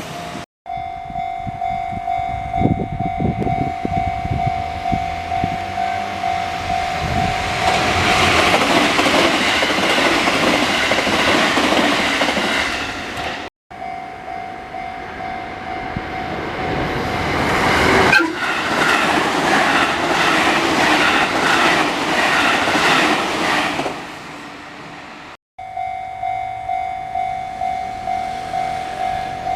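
Japanese level-crossing warning bell ringing in rapid even dings, about two a second, while trains pass over the crossing twice with loud rumbling and wheels clacking over rail joints. The sound cuts off abruptly three times.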